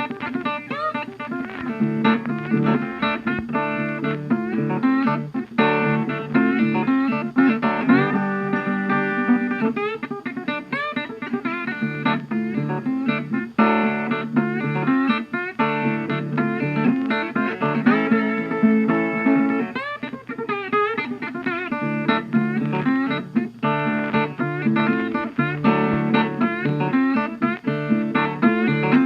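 Background music led by guitar, with plucked and strummed notes and a steady beat.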